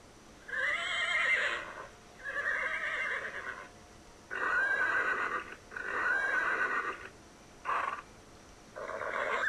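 A horse whinnying over and over: six calls, most about a second long with a shaking pitch, separated by short pauses.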